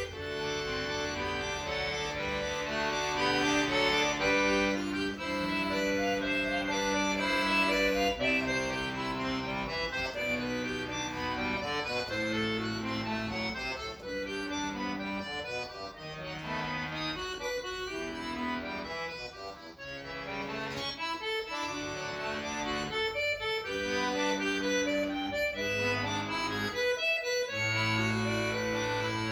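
Accordion playing a solo piece, with sustained chords and a moving melody line; it drops briefly quieter about two-thirds of the way through, then builds again.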